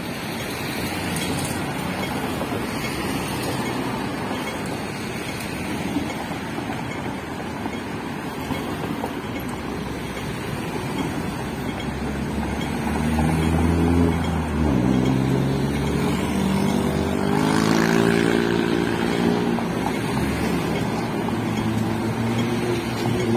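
City street traffic: a steady hum of passing cars, with a heavier engine running close by from about halfway, its pitch rising and falling.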